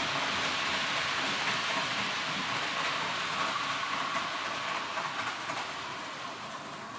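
H0 scale model train running along the layout's track: a steady whirring rush with a faint hum, a few light clicks about five seconds in, growing a little quieter toward the end.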